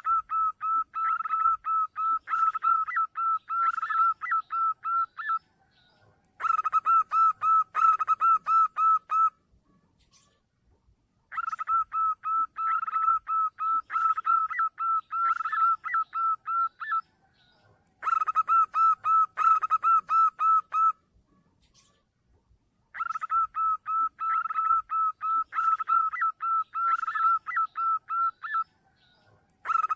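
Zebra dove (perkutut) calling: quick runs of short, evenly repeated cooing notes, each run lasting a few seconds with brief pauses between, played as a lure call.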